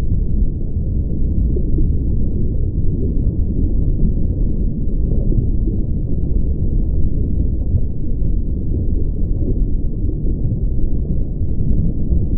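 Steady, deep, muffled ocean rumble, an even low roar with no distinct events.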